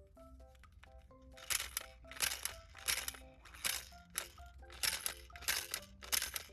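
Small plastic candy-toy dishwasher worked in the hands: eight short scratchy rattles about two-thirds of a second apart, starting about a second and a half in. Light background music plays throughout.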